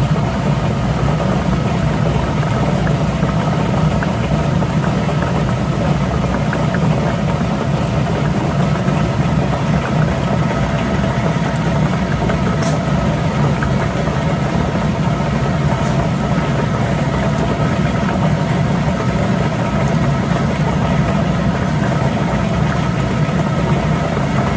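A motor running steadily with an even hum.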